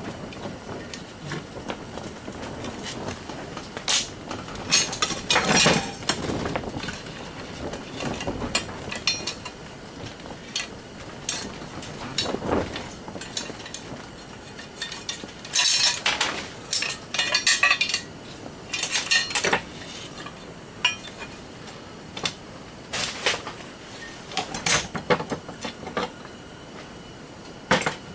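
Metal parts of a garage door opener being handled and worked apart by hand: irregular clinks, clanks and scrapes of tools and steel pieces, coming in short clusters.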